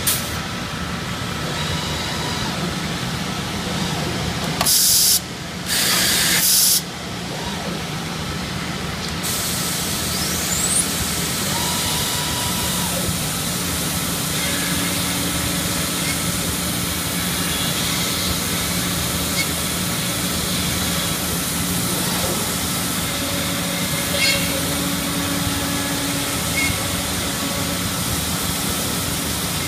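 Industrial plastics-processing machinery running steadily with a low hum. Two short, loud blasts of compressed air come about five and six seconds in.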